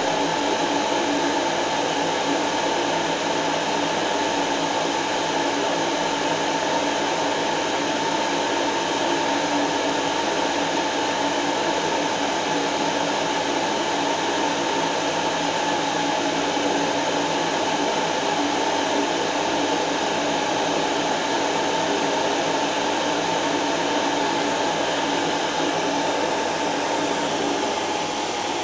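Vacuum cleaner running steadily: an even hum with a constant whine in it.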